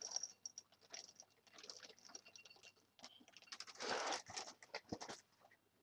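Reese's Puffs cereal being handled and poured: irregular soft rustling with light pattering, louder for a moment about four seconds in.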